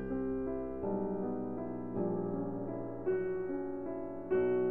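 Background piano music: slow, held chords that change about once a second.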